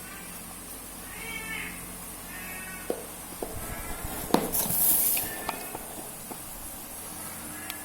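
A domestic cat meowing twice, short pitched calls about a second apart, followed by a few sharp clicks and a brief high hiss of noise.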